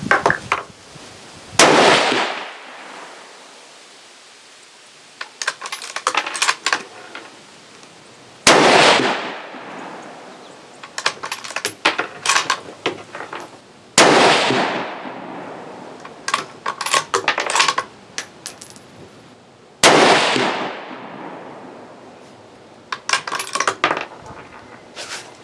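Savage Axis bolt-action rifle in .223 Remington firing four shots about six seconds apart, each a sharp report with a long fading echo. Between shots come quick runs of metallic clicks and clacks as the bolt is worked.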